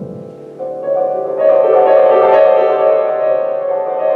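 Piano playing slow, sustained chords. A new chord comes in just over half a second in, and it swells louder and fuller about a second and a half in.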